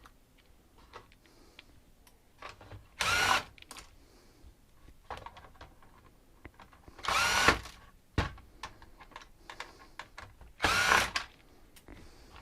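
Cordless power drill-driver spinning in three short bursts about four seconds apart, each a brief whine that rises and falls in pitch, as screws are backed out of a docking station's casing. Small clicks and taps of handling come between the bursts.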